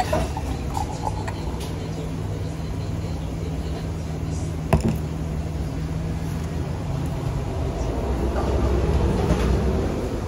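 Beer poured from a bottle into a glass, then the glass bottle set down on the wooden table with a single knock about halfway through, over a steady low hum.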